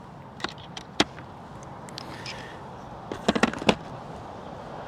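Handling of hose clamps and hand tools: a single sharp click about a second in, then a quick cluster of clicks and clinks about three seconds in.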